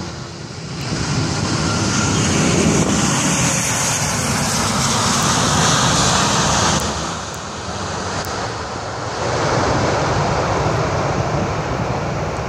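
Airbus A330-300 airliner's jet engines rushing during the landing rollout just after touchdown. The noise swells about a second in as the aircraft passes close by, eases a little, then rises again near the end as it rolls away down the runway.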